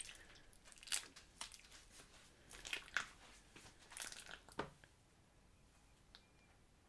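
Homemade slime being worked by hand, giving off faint irregular crackles and pops that stop about four and a half seconds in.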